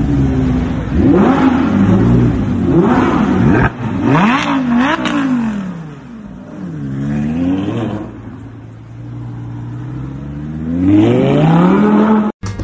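Audi R8 Spyder's 5.2-litre V10 revved hard several times in quick blips, then running at lower revs, and climbing in one long rev near the end that cuts off abruptly.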